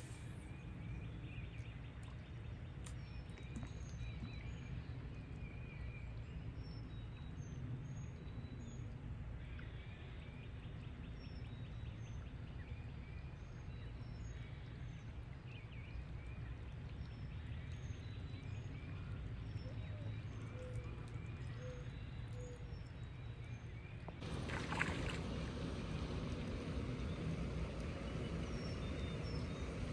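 Outdoor ambience of steady low rumble with small birds chirping throughout. About 24 seconds in, the sound changes and a splash comes, followed by water sloshing as a hooked fish thrashes at the pond surface.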